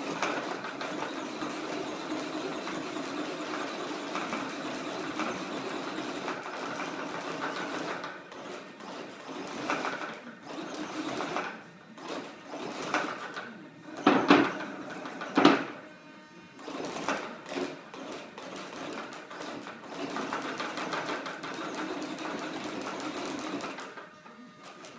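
BK mini cyclic servos in an Extreme Flight Laser model airplane buzzing as they sweep the rudder and elevator rapidly back and forth. The buzz runs steadily at first, then comes in stop-start bursts with two sharp louder bursts about halfway through, and runs steadily again before stopping near the end.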